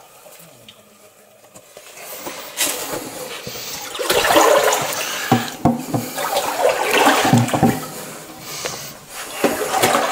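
Shallow water splashing and sloshing as someone wades along a narrow concrete tunnel channel. It starts faint and grows louder from about four seconds in, coming in irregular surges with dull steps.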